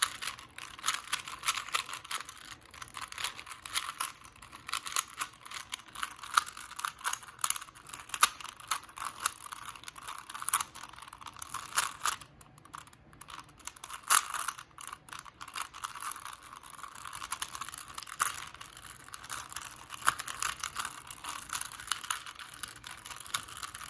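Plastic Rubik's Cube being twisted fast to scramble it: a steady stream of irregular clicking and rattling as the layers turn.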